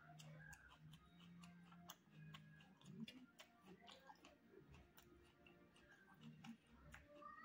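Faint, close-miked chewing of rice and chicken: an irregular run of small wet mouth clicks, with fingers working through rice on a steel plate.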